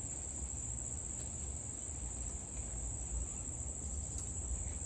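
Insects, crickets, making a steady high-pitched trill, with a low rumble underneath and a couple of faint clicks.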